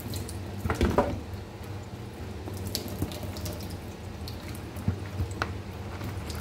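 Water draining and dripping out of a plastic bottle of sprouted mung beans into a stainless-steel sink, with scattered small clicks and a louder knock about a second in.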